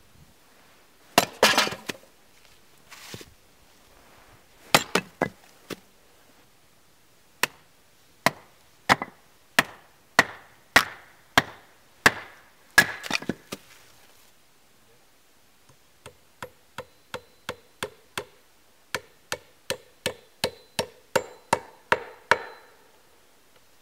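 Hatchet chopping and splitting firewood logs on a wooden chopping block: sharp, irregular blows and the crack of splitting wood for the first half or so. After a short pause comes a run of quicker, lighter, evenly spaced chops, about two or three a second.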